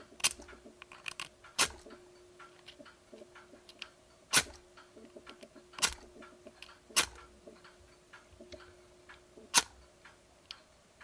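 Oil match (permanent match) brass striker rod scraped against the flint on its metal case: six sharp clicks at uneven intervals of one to three seconds, with softer ticks between, and no flame catching because the wick on the rod has burnt away.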